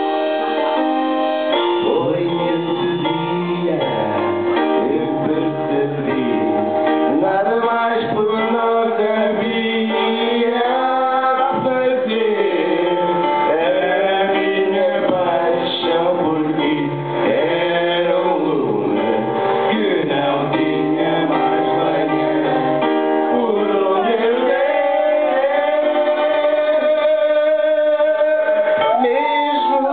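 Two men singing through handheld microphones over a karaoke backing track, holding one long note near the end.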